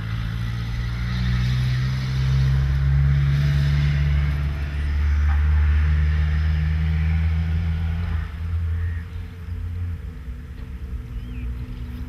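A low, steady engine rumble, like a motor vehicle running nearby. It is strongest for the first eight seconds and then fades.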